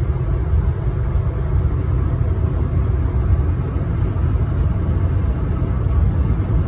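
Steady low road rumble inside the cabin of a vehicle driving on a highway: tyre and engine noise heard from the driver's seat.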